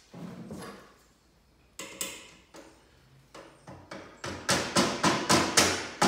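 Glazing points being tapped into a wooden window sash to hold the new glass: a few separate sharp taps, then from about four seconds a run of quick metal-on-wood taps, about four a second, getting louder.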